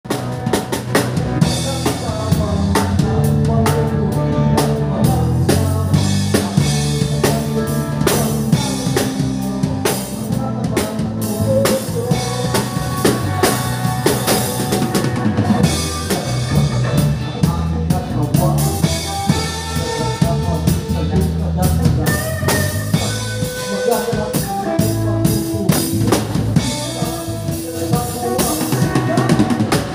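Live band playing: a drum kit with snare, bass drum and cymbals hit continuously while an electric bass guitar plays a moving line of low notes underneath.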